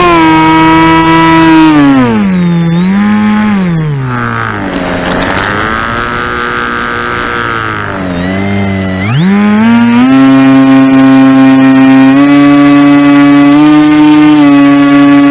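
Radio-controlled model airplane's motor and propeller, heard close from a camera on the plane: a steady whine that drops in pitch about two seconds in as the throttle comes back, runs lower and quieter for several seconds, then climbs back up about nine seconds in and holds steady.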